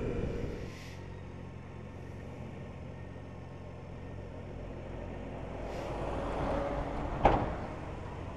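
BMW K1600's inline-six engine running on the motorcycle, dropping to a steady low hum under a second in as the throttle eases. Near the end a rush of noise builds up and peaks in one sharp click.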